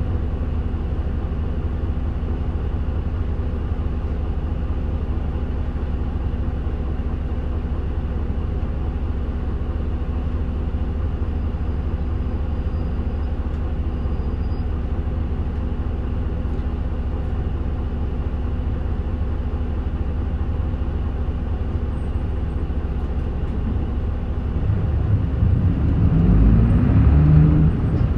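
Mitsubishi Fuso KK-MK27HM midibus diesel engine heard from inside the bus, running with a steady low hum. Near the end the engine note rises and grows louder as the bus accelerates.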